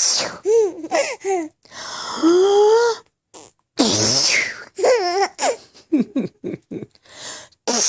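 Baby laughing in repeated short, high-pitched bursts, with a longer breathy laugh about two seconds in.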